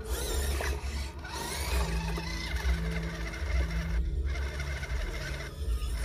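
Small electric motors and gearboxes of RC 4x4 crawler trucks whining steadily as they drive through the water, over a low rumble.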